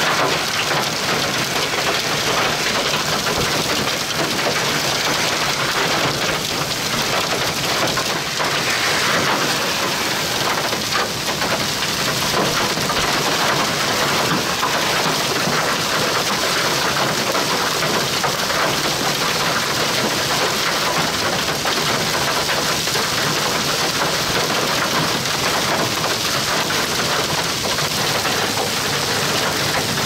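Heavy, wind-driven rain from a severe thunderstorm: a steady loud hiss with a dense patter of drops striking surfaces.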